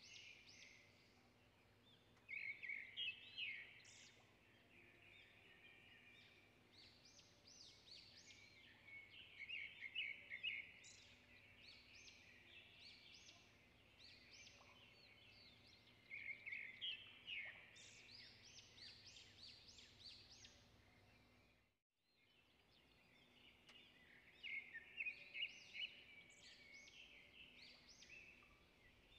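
Birds chirping in repeated bouts of quick, high chirps over a faint steady background hum; the sound drops out completely for a moment about three-quarters of the way through.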